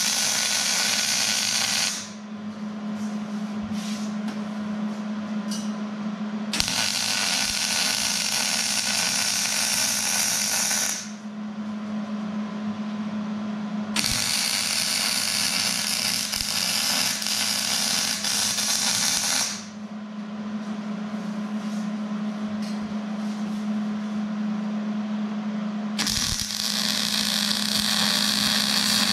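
Electric arc welding on steel: the arc runs in four stretches of several seconds each, with pauses between the beads. A steady low hum runs underneath throughout.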